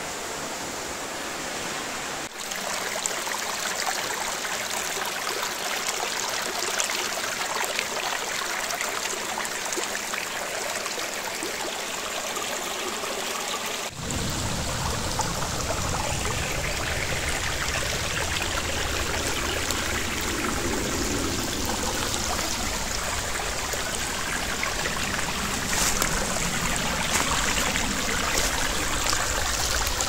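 Small waterfall splashing into a rock pool, then a shallow forest stream rippling over stones. The sound changes abruptly about fourteen seconds in, with a deeper rumble after.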